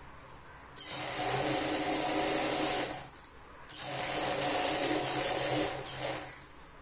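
Industrial sewing machine stitching a zip onto a fabric bag in two runs of about two seconds each, each starting suddenly and winding down as the machine stops.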